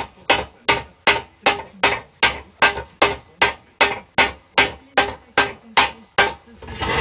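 Hand hammer striking a sheet-steel helmet shell as it is raised into shape, a steady beat of about two and a half blows a second.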